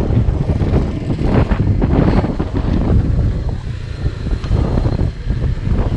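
Heavy wind buffeting the microphone: a loud, gusty low rumble.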